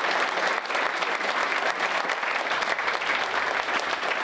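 A roomful of people applauding: many hands clapping in a dense, steady patter.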